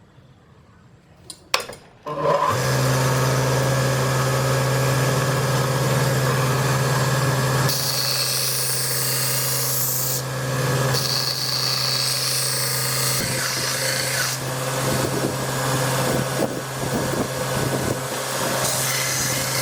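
An electric grinder switches on about two seconds in and runs steadily, grinding steel, its hiss swelling and easing as the work is pressed to it and eased off.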